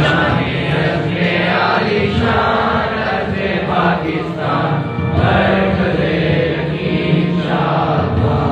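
A group of voices singing together in slow, drawn-out phrases, as in a school assembly's group recitation.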